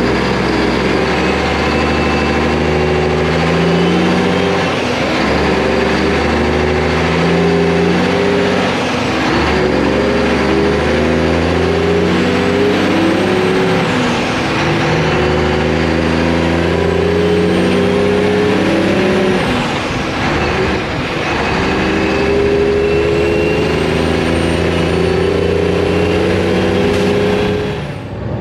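Truck engine pulling a loaded trailer on the road, accelerating and shifting up through the gears, its pitch climbing and dropping back several times.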